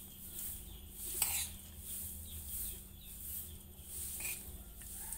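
Quiet clinks and scrapes of a spoon against a ceramic plate of rice during eating, with one sharp click about a second in.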